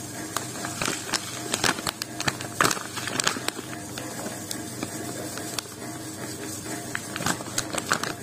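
Salt poured in a thin stream into a clear plastic jar, the grains ticking and hissing against the plastic and the growing heap. It comes in two spells, heaviest in the first few seconds and again near the end.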